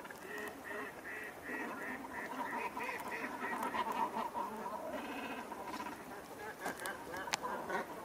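A flock of ducks and swans calling on the river, a quick run of short repeated calls, about four a second, overlapping with other calls. A single sharp click comes shortly before the end.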